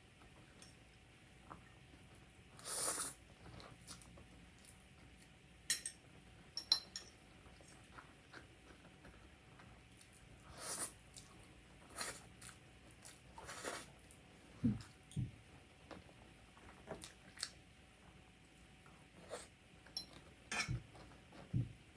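Close-up eating sounds: scattered light clicks of utensils against a dish, a few short hissing bursts, and soft chewing thuds toward the end.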